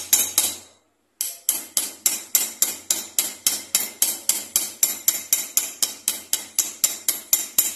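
Small hammer tapping a rivet on a steel anvil, quick even light blows about four a second, peening the rivet over to lock the plastic grip onto a pressure cooker's handle bar. The tapping stops briefly just under a second in, then carries on.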